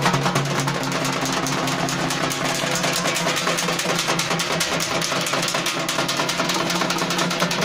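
A group of dappu frame drums beaten in a fast, steady, driving rhythm, with a steady low hum underneath.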